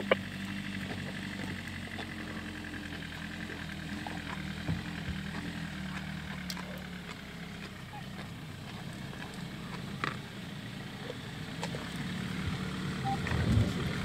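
Vehicle engine idling steadily, a low even hum, with a few faint sharp clicks over it and a short louder low rumble near the end.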